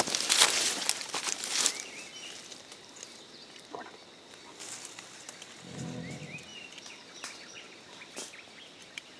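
Rustling and crackling of leaves and undergrowth for about the first two seconds, then quieter forest background with short bird chirps and a few faint clicks. A brief low sound comes about six seconds in.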